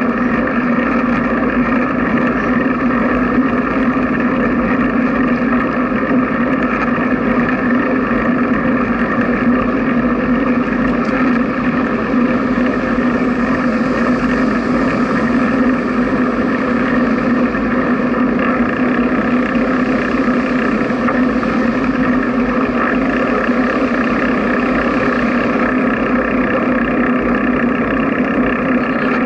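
Steady riding noise from a camera mounted on a bicycle rolling along pavement: wind on the microphone and tyre noise, with a constant hum that does not change in pitch or level.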